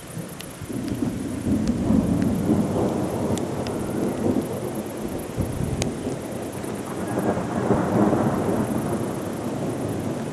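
Rolling thunder rumbling in a thunderstorm, swelling twice, with a few sharp ticks over it.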